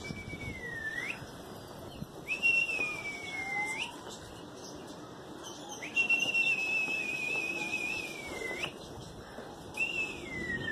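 A person whistling four long, high held notes, each ending in a quick upward or downward flick: a pigeon keeper's whistle to his flock in flight.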